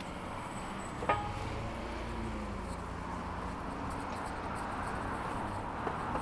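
Road traffic going by, one passing car's engine note falling as it passes; a sharp click about a second in.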